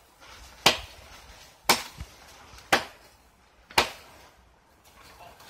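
Machete chopping into a small tree: four sharp strikes, about one a second.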